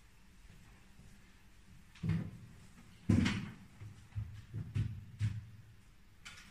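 A few knocks and thumps of a wooden dining chair being pulled out and sat in, the loudest about three seconds in. They are followed by several lighter knocks of things being handled on the table.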